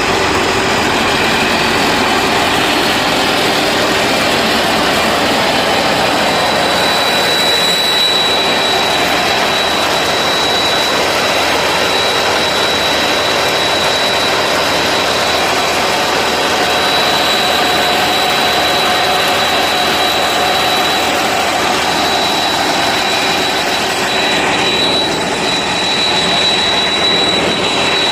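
Pan Charoen combine harvester's diesel engine running loud and steady at high revs, with a steady high whine over it.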